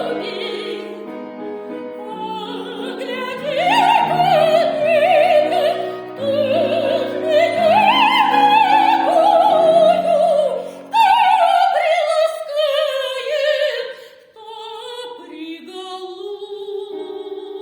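Operatic soprano singing sustained phrases with wide vibrato over piano accompaniment. About three-quarters of the way through the voice stops and the piano plays on alone.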